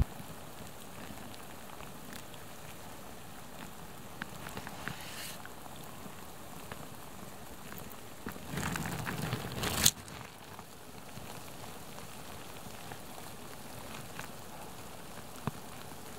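Steady hiss of open snowfield ambience with scattered faint crackles, like fine grains pattering. About eight and a half seconds in, a louder rustle rises and ends in a sharp click a second or so later.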